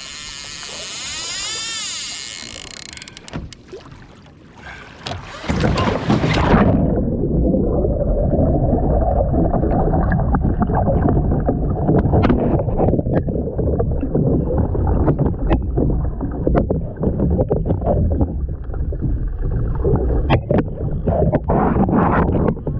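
Water rushing and splashing around a kayak, loud and dense from about five seconds in, with many short knocks through it.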